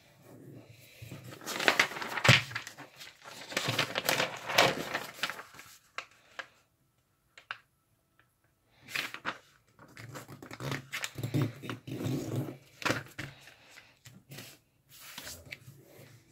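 A sheet of origami paper being folded in half and creased by hand, the paper rustling and scraping against the desk as the fold is pressed flat. It comes in two stretches with a pause of about two seconds between them.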